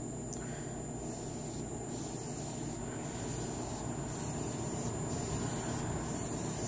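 Foam brush wiping polyurethane across a stained plywood tabletop: soft rubbing strokes about once a second over a steady background hiss.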